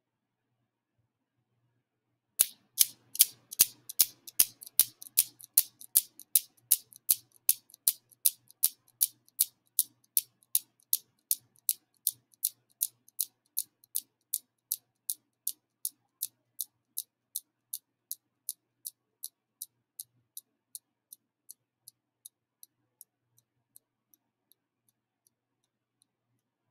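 Newton's cradle: its metal balls clacking together after an end ball is let go. Sharp, high clicks about two to three times a second start some two seconds in and fade steadily over about twenty seconds until they die away.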